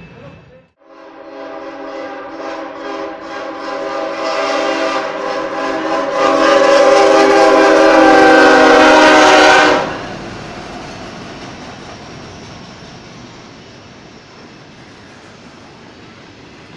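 Kansas City Southern de México freight locomotive sounding its air horn in one long, several-note blast that grows louder as it draws level and then cuts off suddenly about ten seconds in. After that, the steady rumble and clatter of double-stack container cars rolling past.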